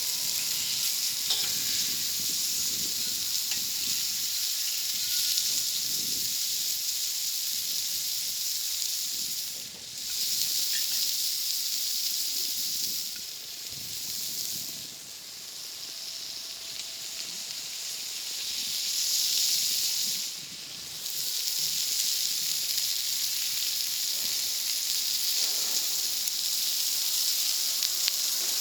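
Food sizzling over a wood fire: a steady frying hiss that drops away briefly a few times.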